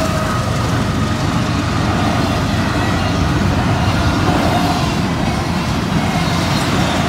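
Fast CSX intermodal freight train passing close by: a steady, loud rumble and rush of its wheels on the rails as the cars go past.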